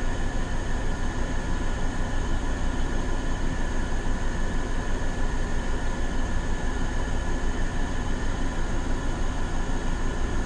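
Air conditioners running: a steady whirring drone with a strong low hum and a few faint steady whining tones above it.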